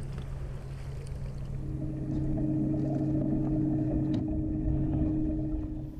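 A bass boat's electric trolling motor humming steadily, with a hooked bass splashing at the boat's side as it is landed.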